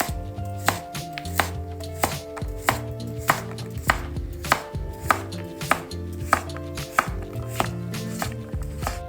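Kitchen knife chopping vegetables on a cutting board at a steady pace, about one sharp knock every 0.6 seconds.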